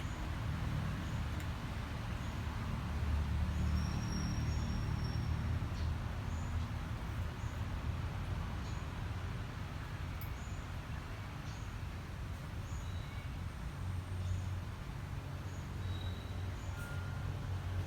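Steady low rumble, swelling a little a few seconds in and again near the end, with faint short high chirps repeating roughly once a second.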